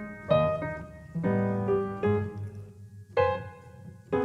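Piano music: chords struck about once a second, each ringing out and fading before the next.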